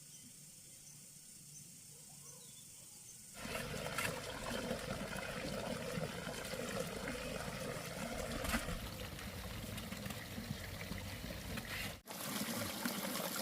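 Water running in a steady rush that starts about three seconds in, after faint insect chirping, and breaks off briefly near the end.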